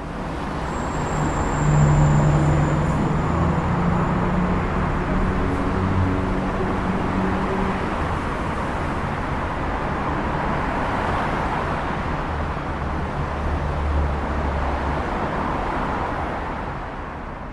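Steady vehicle noise with a low hum in the first half, fading in at the start and out at the end.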